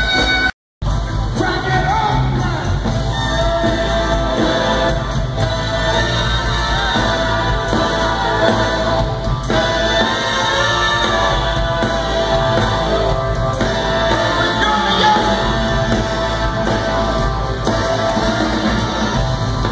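Live band music with a singer, heard from out in the audience seating of a large concert pavilion. The sound cuts out completely for a moment just under a second in.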